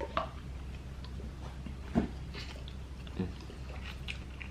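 Close-miked eating sounds: a few short, wet mouth clicks and chewing noises spaced out over a few seconds, over a steady low hum.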